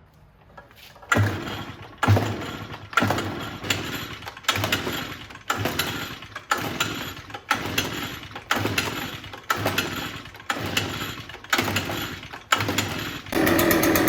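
Two-stroke engine of an Echo PB-580T backpack leaf blower being pull-started on choke: about a dozen pulls, one a second, each spinning it over briefly, until it catches and runs steadily near the end.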